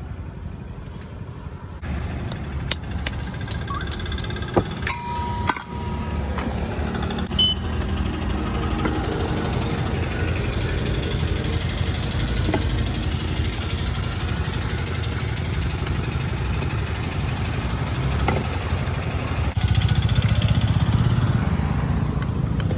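Motor-driven sweet lime juice extractor running with a steady, fast-pulsing hum that starts about two seconds in and grows louder near the end. A few sharp metallic clinks are heard in the first few seconds.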